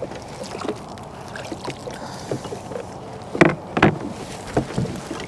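Handling noises in a kayak: scattered small knocks and taps against the hull, with two louder thumps close together about three and a half seconds in.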